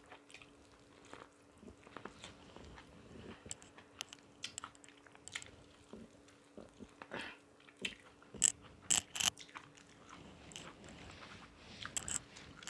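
Biting and chewing corn on the cob, close to a clip-on microphone: scattered crisp crunches and wet mouth clicks, with a run of louder crunches about eight to nine seconds in and another near the end.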